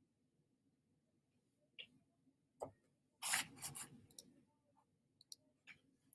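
Faint paper rustle and a few soft clicks as a page of a hardcover picture book is handled and turned.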